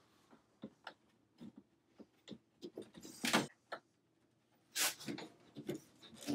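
PVC pipes and fittings being handled and fitted together, giving a scatter of irregular clicks and knocks, with two louder scrapes about three seconds in and near five seconds.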